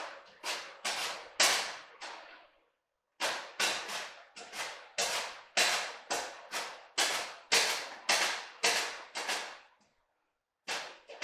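Yellow squash being pushed across a stainless-steel mandoline slicer's blade, each stroke a sharp cutting swish that fades quickly, about two to three strokes a second. It pauses briefly about two and a half seconds in and again near the end.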